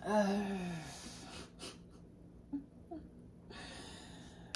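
A woman's wordless, drawn-out vocal sound, about a second long and falling in pitch, then a couple of faint clicks and a breathy exhale near the end.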